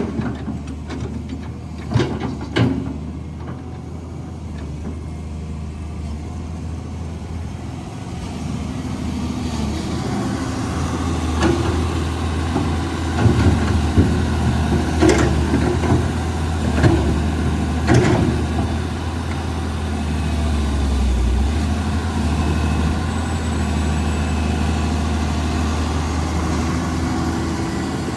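Caterpillar 320 excavator's diesel engine running steadily, growing louder about a third of the way in, with several sharp knocks scattered through it.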